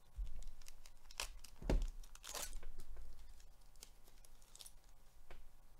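Foil trading-card pack wrapper being torn open and crinkled by hand, with a few sharp rips between about one and three seconds in, then lighter crinkling.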